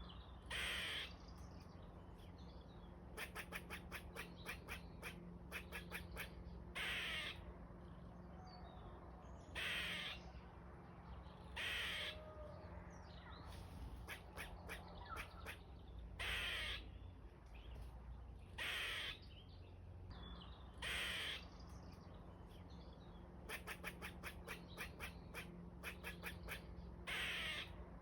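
Squirrel calling: harsh, raspy calls about half a second long every few seconds, with runs of rapid clicking chatter in between.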